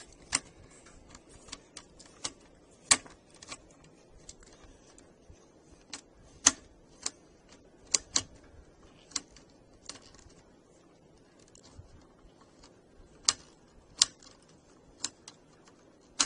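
Irregular sharp clicks and taps of a screwdriver and small plastic and metal parts as a Phillips screw is worked out of a Compaq Presario C700 laptop's internals.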